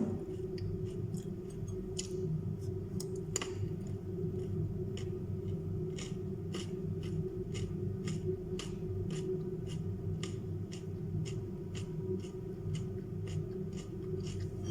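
Crisp, crunchy chewing of raw carrot and cucumber, with short sharp crunches at about two to three a second, over a steady low background hum.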